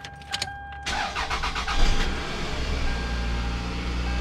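Toyota RAV4's 2.4-litre four-cylinder engine started: a couple of clicks of the ignition key, the starter cranking for about a second, the engine catching with a brief rev, then settling into a steady idle. It is running really good on new spark plugs and ignition coils, with the cylinder 3 misfire cured.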